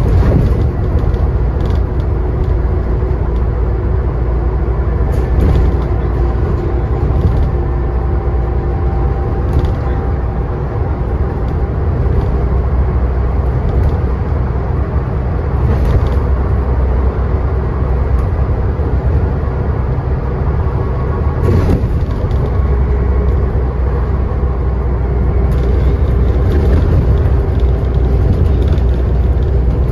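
Scania N94UD bus's five-cylinder diesel engine and ZF Ecomat automatic gearbox running under way with a steady low rumble and a faint steady whine. Occasional short knocks or rattles come through.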